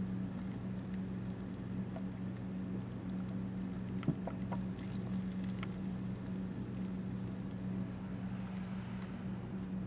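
Clogged garbage disposal drain bubbling as pure lye drain-opener beads react in the backed-up water, with scattered faint pops and one sharper pop about four seconds in. A steady low hum runs underneath.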